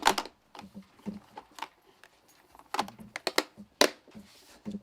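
Small black plastic toolbox being opened and handled: a string of sharp plastic clicks and knocks, with a loud one at the start and a cluster about three to four seconds in.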